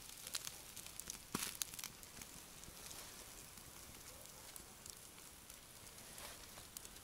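Campfire embers crackling faintly: scattered sharp clicks over a soft hiss, with a small cluster of them about a second and a half in.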